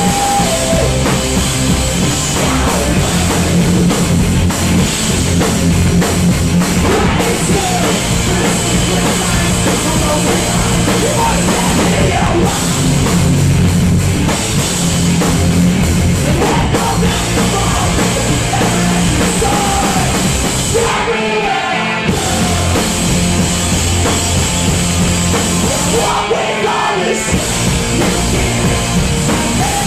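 Live punk rock band playing loud: electric guitars, bass and a drum kit with vocals. The bass and drums drop out briefly twice, about two-thirds of the way in and again a few seconds later.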